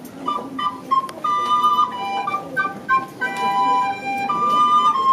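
Two recorders playing a lively melody together in two parts, one voice just above the other, with a softer low accompaniment from the rest of the early-music ensemble.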